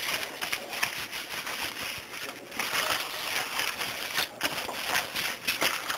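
Paper towels rustling and crinkling as hands press and wipe them over a wet cell phone and its battery to soak up the water. The rustle goes on unevenly, with short pauses where the hands lift.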